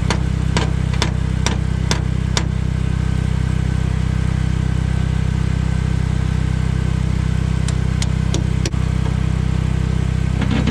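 Hammer blows on the steel bearing housing at the conveyor's pulley end: six strikes about two a second, then four more near the end, as the worn bearing is knocked loose. A small engine drones steadily underneath.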